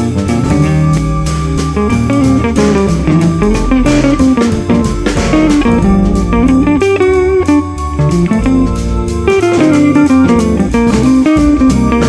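Background music: an instrumental track with guitar and drum kit playing at a steady beat.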